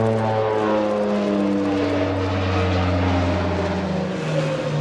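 Rockwell OV-10B Bronco's twin Garrett T76 turboprops passing overhead: a loud, steady propeller drone whose pitch slides down as the aircraft goes by.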